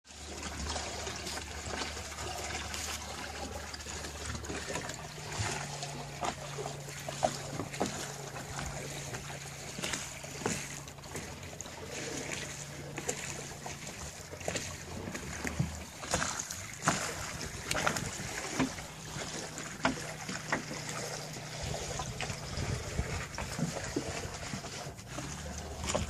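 Water rushing and slapping irregularly against the hull of a Telstar 35 trimaran under sail, over a steady low hum.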